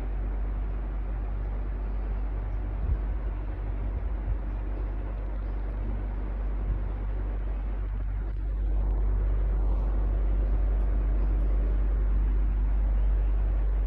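Electric fan running steadily: an even rush of air over a strong low rumble. The rumble grows louder a little past halfway through. There are a couple of brief low bumps early on.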